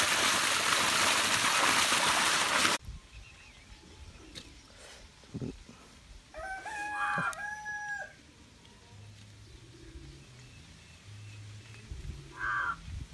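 Water gushing from a pipe outlet, splashing over hands onto the ground, stops abruptly about three seconds in. A rooster then crows once, a held call that drops at the end, and a shorter call follows near the end.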